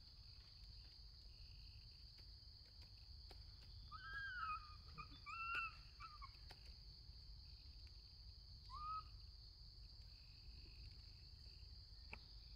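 Very quiet, with four faint, short coo calls from a young macaque, each rising then falling in pitch, about four, five and a half, six and nine seconds in, over a steady high hiss.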